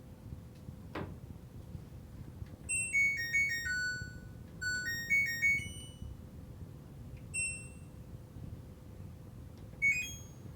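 Front-load washing machine's control panel beeping: a short descending tune of stepped beeps plays twice, followed by two single beeps. A short falling whistle sounds about a second in.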